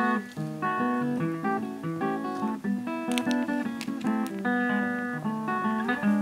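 Background music: an acoustic guitar picking a steady run of single notes and chords.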